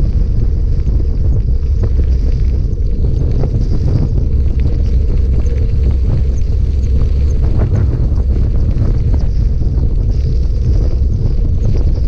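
Wind noise on the microphone as a bike rides a gravel road: a steady, loud low rumble with scattered small crunches and rattles from the tyres on the gravel.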